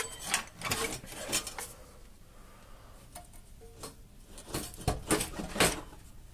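Metal-on-metal clinks and knocks from a hand tool worked against a Ford Ka's steel rear axle beam as it is prised loose. There is a quick run of sharp knocks in the first second and a half, a quieter stretch, then another cluster of knocks near the end.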